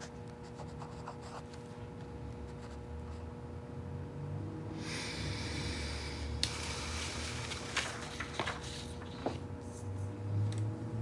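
Pen scratching on paper, loudest about halfway through, with small clicks and knocks after it, over a steady electrical hum in a small room.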